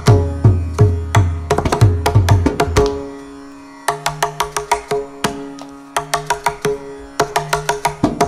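Mridangam solo in four-to-a-beat chathurashram phrasing, over a steady tanpura drone. Deep bass-head strokes mix with ringing treble strokes for about three seconds. After a brief lull where only the drone sounds, a fast run of lighter treble strokes follows.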